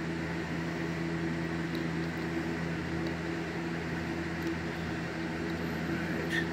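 A steady low machine hum at an even level, with a few faint light ticks.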